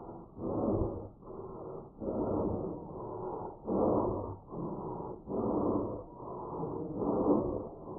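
German shepherd dog in a sneezing fit: five loud nasal sneeze-snorts about every second and a half, each followed by a quieter breath. The owner puts it down to dust or pollen in her nose.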